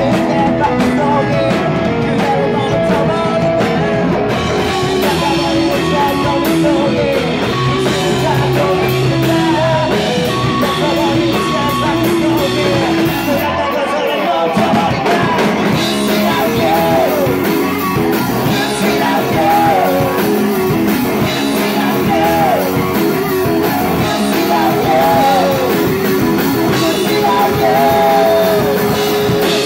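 Live rock band playing loud: drum kit, bass guitar and electric guitar, with a male lead vocal sung into the microphone. About halfway through the low end drops away for a moment in a brief break before the band comes back in.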